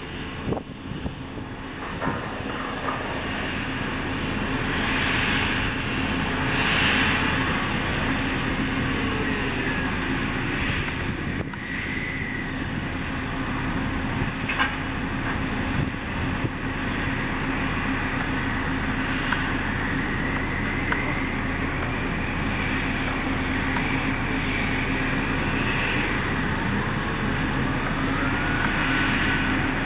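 Gas drilling rig machinery running steadily: a constant mechanical hum with a low steady tone, a few faint high whines that rise and fall, and occasional light knocks.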